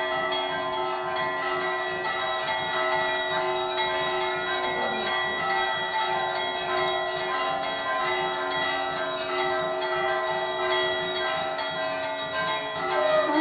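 Metal temple hand bell rung continuously through the aarti, a steady, unbroken ringing.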